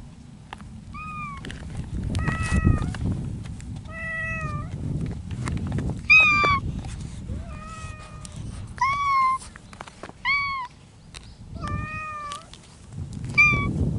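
Stray cats meowing over and over, about nine short calls each a second or so apart, in the spring courtship season.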